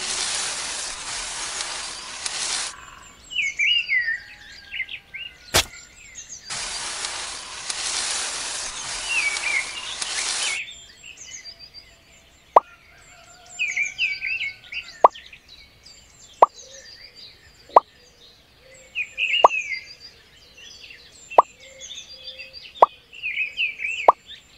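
A tiny metal rake scratching through sand in two long strokes, then a series of eight short plops about a second and a half apart as small seeds are set into the furrows. Birds chirp faintly throughout.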